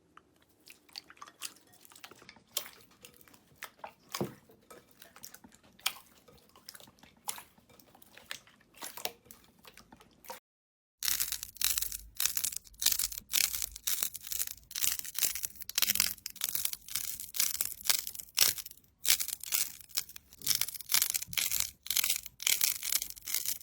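Slime being pressed and worked by hand, giving many small crackling, crunching clicks. The sound cuts out briefly about ten seconds in and comes back louder and denser.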